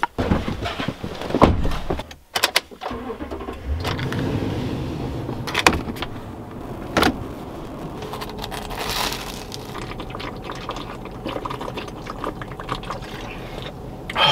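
A car's engine and road noise heard from inside the cabin: a steady low rumble with a few sharp clicks and knocks. It is preceded in the first two seconds by a burst of loud knocks and rustling.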